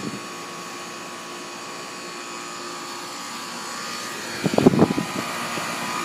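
York central air-conditioner outdoor condenser unit running: a steady hum of the fan and compressor with several steady tones, growing louder as the microphone nears it. A few brief rumbling bumps come about four and a half to five seconds in.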